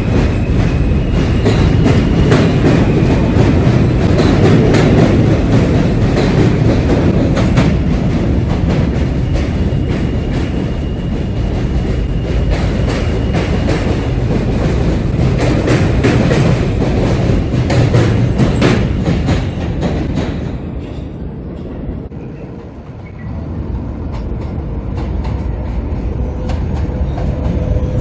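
New York City subway train running past, a loud rumble with the rapid clickety-clack of wheels over rail joints. The noise dies down about three quarters of the way through, then builds again.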